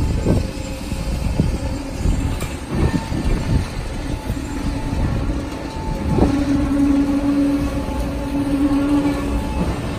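Truck-mounted concrete boom pump running: a steady diesel-machinery drone with a few knocks in the first few seconds, and a hum that grows stronger for about three seconds past the middle.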